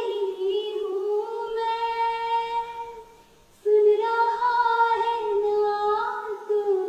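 A girl singing unaccompanied in long held notes. There are two phrases, with a brief pause for breath about three seconds in.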